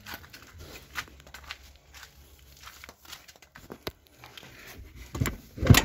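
Scattered light clicks and scraping as a car seat is worked back along its floor rails to free it, ending in a louder knock near the end.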